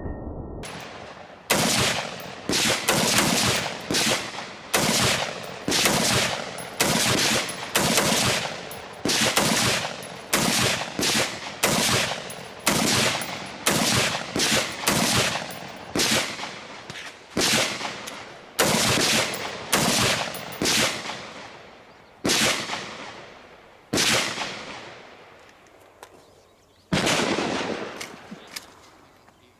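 Gunshots at a shooting range: some thirty single shots in a steady string about half a second to a second apart, each with a short ringing tail. The shots come further apart near the end.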